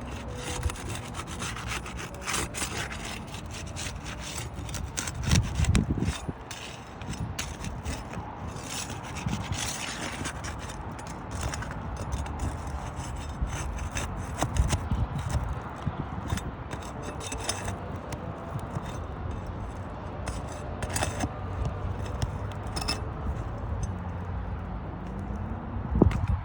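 Asphalt roof shingles being pried loose, a tool scraping and rasping under them to break the adhesive seal strips, with irregular clicks and a few louder knocks.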